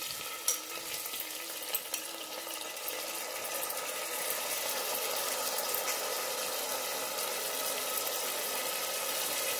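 Washed raw rice sizzling in hot ghee in a pressure cooker: a steady crackling hiss as the wet grains hit the fat, with a couple of sharp pops in the first two seconds.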